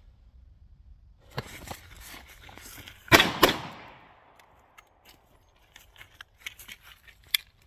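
Two quick shots from a 6-inch Smith & Wesson 686 .357 Magnum revolver, a hammer pair fired about a third of a second apart, with an echoing tail. Light rustling comes before them, and a scatter of small clicks follows.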